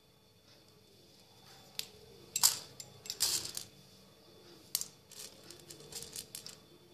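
Small plastic beads clicking and rattling against a steel plate as a needle is dipped in to pick them up, in several short rattles, the loudest about two and a half seconds in.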